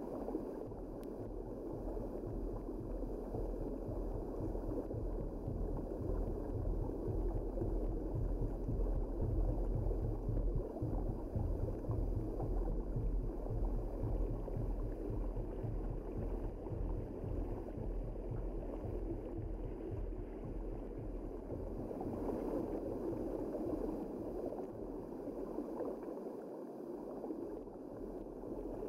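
Steady, dull rush of water heard underwater, with a low rumble beneath it.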